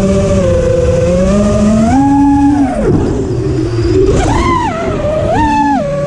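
6S FPV freestyle quadcopter's motors and propellers whining, heard from on board, the pitch following the throttle: a held climb about 2 s in, a drop at about 3 s, then two quick throttle punches near the end.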